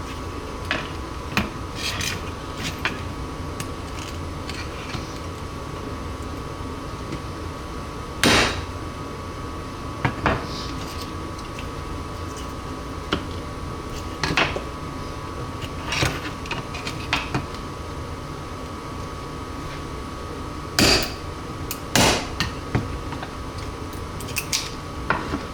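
Hammer striking a cat's paw chisel to break an airsoft lower free: irregular light taps with three hard blows, one about 8 seconds in and two close together near the end.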